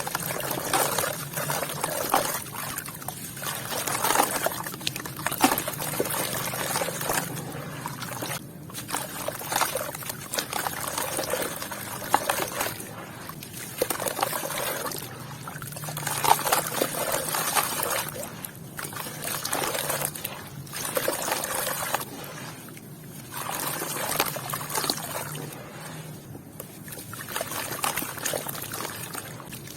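Wet sand and red dirt crumbling and trickling into water, with small clicks of white stones, in repeated bursts every second or two.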